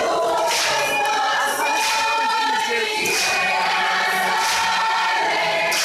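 Large crowd singing together in chorus, many voices held in a group song, with a sharp accent recurring about every second and a half.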